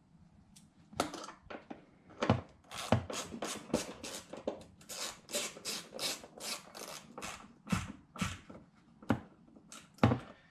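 Hand ratchet wrench clicking in quick, fairly regular strokes, about four a second, as a fastener holding a ring in the car's trunk floor is snugged down.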